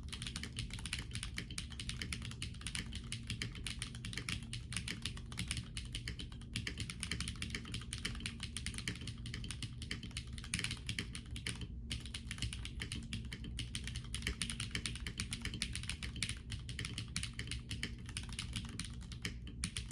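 Continuous typing on an Epomaker Galaxy65 mechanical keyboard with Cherry MX Black switch housings and metal long-pole stems, Cherry PBT keycaps and a stock FR4 plate, with no case or PCB foam. A dense, fast run of keystrokes, with a short pause about twelve seconds in.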